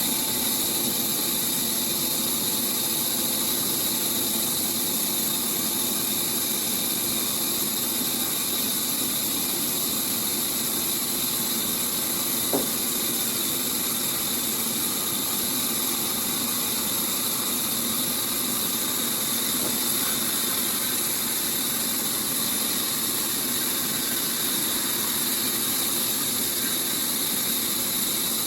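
Sawmill log-saw machinery running steadily, a constant high-pitched mechanical hiss and hum, with one short click about halfway through.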